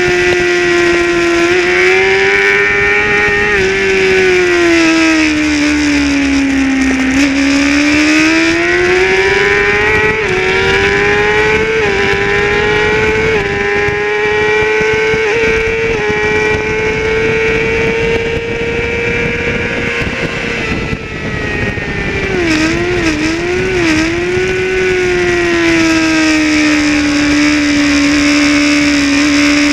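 Racing motorcycle engine heard from onboard, running hard at high revs. Its pitch sags and climbs again about a quarter of the way in, steps up in small jumps through the middle, and falls and rises three times in quick succession about three quarters of the way in, as the rider changes gear, over a steady rush of wind on the microphone.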